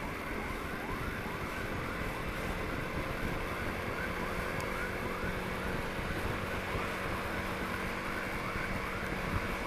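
Ambulance siren in a fast repeating yelp, rising sweeps about two a second: the urgent emergency mode. Road and engine rumble runs underneath.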